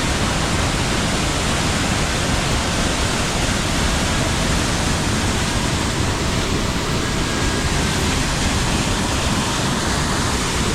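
Waterfall on the Amnicon River rushing at close range, a loud, steady, unbroken roar of falling water running high.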